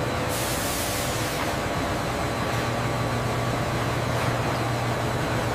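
Steady industrial machinery ambience: an even hiss over a constant low hum, with a brief rise in high hiss in the first second.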